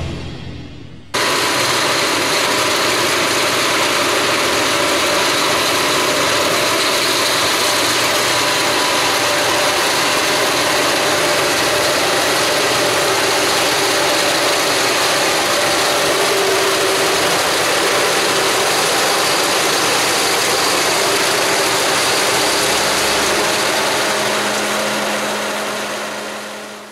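Fortschritt self-propelled forage harvester working in standing oats, its engine and chopper running steadily. The sound cuts in about a second in and fades out near the end.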